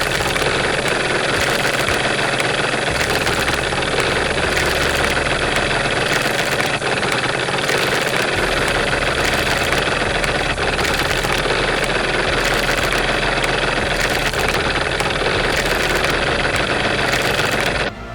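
Engine running steadily and loudly without clear changes in speed, cutting in and out abruptly.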